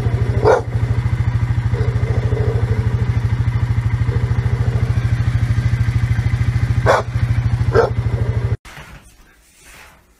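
ATV engine idling with a steady, even beat. A dog barks three times over it, once about half a second in and twice close together later on. The engine sound cuts off suddenly near the end, leaving only faint quiet sounds.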